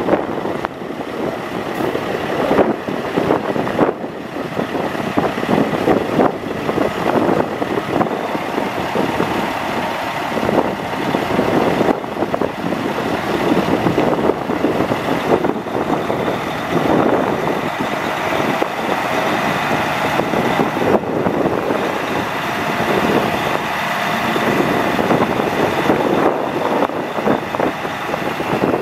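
A 2004 Sterling AT9500 dump truck's Caterpillar C12 diesel engine idling steadily, with wind gusting on the microphone.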